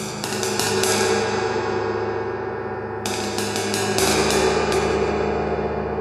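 A 22-inch wind gong, which its owner believes to be a Turkish, Zildjian-style gong, tapped with the wooden tips of drumsticks: a quick run of light strikes at the start and another about three seconds in, over the gong's continuous ringing.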